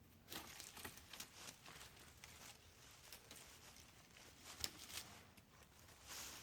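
Faint rustling and crackling of dry leaves and twigs being disturbed, with irregular small snaps and one sharper snap a little past the middle.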